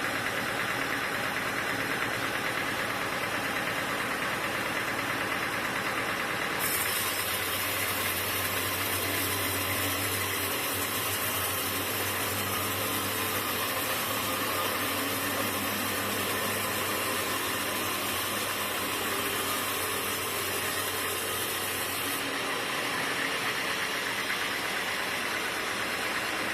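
Sawmill machinery running steadily. About 7 seconds in, a low hum and a high hiss join in together; both stop abruptly near 22 seconds.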